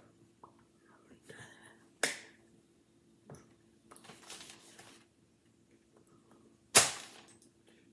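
Hands clapping together while signing in sign language: a sharp clap about two seconds in and a louder one near the end, with soft breathy sounds in between.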